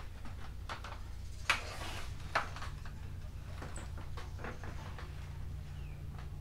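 Footsteps and knocks on the steel deck of a ship's bridge: two sharp knocks about a second apart and a few lighter clicks, over a steady low hum, with a brief high bird chirp near the middle.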